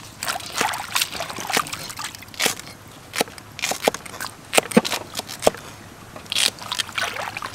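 Hands swishing cut cactus strips around in a stainless steel bowl of water: irregular sloshes, splashes and drips.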